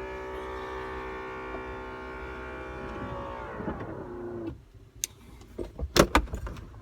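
Porsche Boxster 986 electric power-window motor whining steadily as the glass travels for about four seconds. Its pitch sags over the last second before it stops. A few sharp clicks and loud knocks follow near the end.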